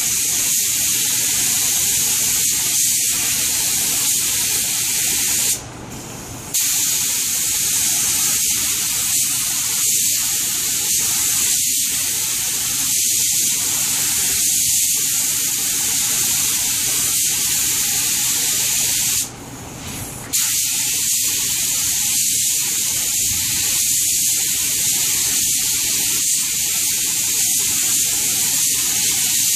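Compressed-air spray gun hissing steadily as it sprays a coat of lacquer onto a wooden chair, dropping away for about a second twice, about six and twenty seconds in.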